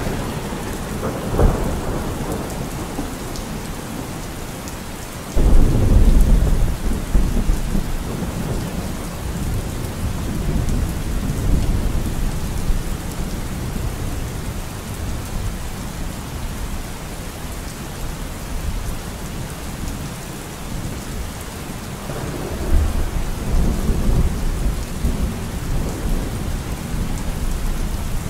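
Thunderstorm: steady rain with rolls of thunder, a short crack about a second in, a heavy rumble that starts suddenly around five seconds in and slowly dies away, and another rumble near the end.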